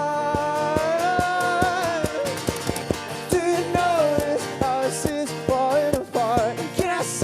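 Live acoustic band performance: strummed acoustic guitar with a steady beat of about three to four strokes a second, under a voice singing long held notes without words.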